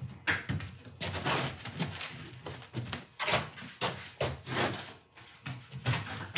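Large foamcore sheets being handled and laid on a table saw's top, making a quick irregular run of light thumps, taps and scraping rustles. The saw is not running.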